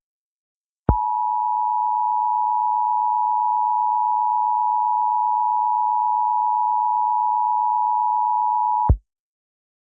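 Emergency Alert System attention signal: a steady two-note tone held for about eight seconds, starting about a second in and cutting off sharply near the end.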